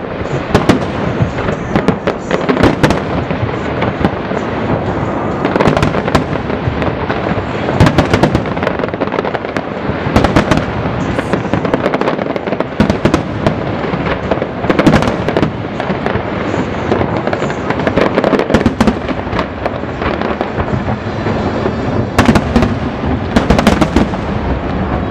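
Aerial fireworks display: many shells bursting in quick succession, a continuous rumble and crackle with sharp, loud bangs every few seconds.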